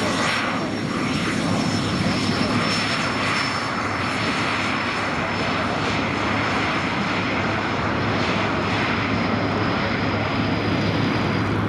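Cessna 525 CitationJet CJ1 business jet's twin turbofan engines running at takeoff power: a steady jet rush with a high whine that fades away near the end.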